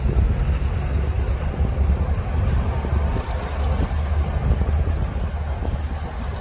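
Heavy diesel engine of earthmoving machinery running steadily with a deep, even rumble.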